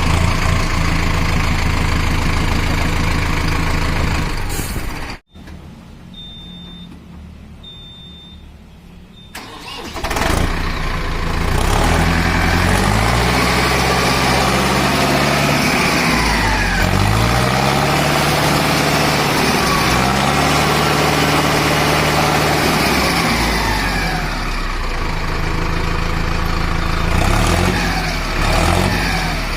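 Mahindra Arjun Novo 605 tractor diesel engine idling steadily. About five seconds in it cuts off suddenly into a quieter stretch with a few short high beeps. At about ten seconds an engine starts and is revved up and down several times.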